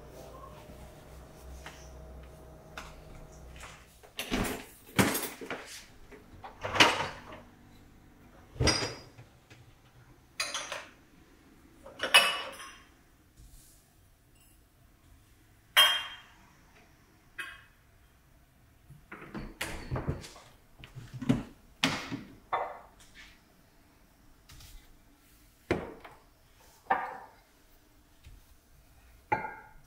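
A series of sharp clinks and knocks from glassware (drinking glasses and glass measuring cups) being set down on the shelves of a kitchen cabinet, some clinks ringing briefly. The knocks begin about four seconds in and come irregularly, one or two at a time.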